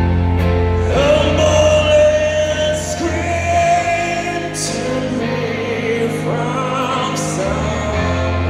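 Live rock band playing, heard from the audience: a male voice sings long held notes that waver, over a steady low bass line, with a few brief cymbal-like crashes.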